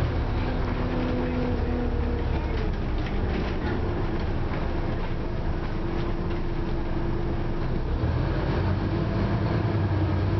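A Scania OmniCity single-deck bus on the move, heard from inside the passenger cabin: a steady diesel engine and drivetrain drone with road rumble. It grows a little louder near the end.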